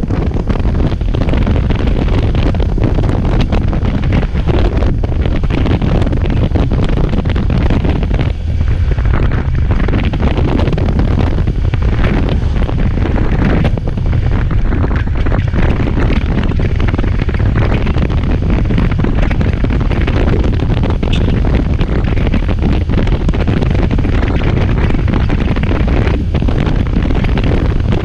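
Wind buffeting the microphone of a moving motorcycle: a loud, steady rush and low rumble that buries any engine sound.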